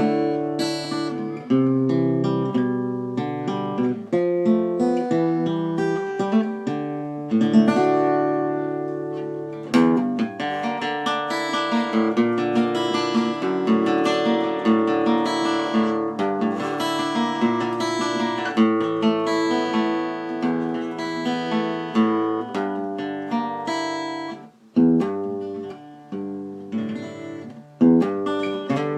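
Acoustic guitar played solo, strummed and picked chords ringing without a break, with a brief pause around three-quarters of the way through before it picks up again.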